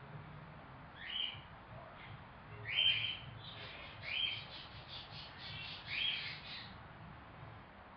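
Young cockatiel calling: four loud rising chirps spaced a second or two apart, with a quick run of softer chirps between the last two.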